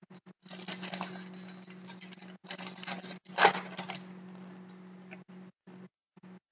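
Foil hockey-card pack wrapper crinkling as it is torn open and the cards are slid out, with one sharp crackle about three and a half seconds in, then quieter rustling of the cards being handled.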